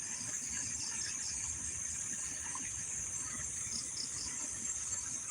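A steady, high-pitched chorus of night insects, crickets or similar, trilling without a break.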